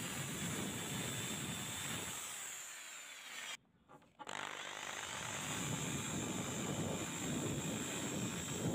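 Electric rotary tool with a felt polishing bob buffing rust off a steel scissor blade: a steady high motor whine with rubbing noise. It fades and cuts out briefly about three and a half seconds in, then starts again.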